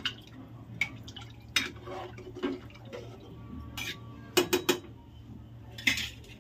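Metal spoon stirring rice and water in an aluminium pressure cooker, clinking against the pot's sides every second or so, with three quick knocks about four and a half seconds in and another near the end. A low steady hum runs underneath.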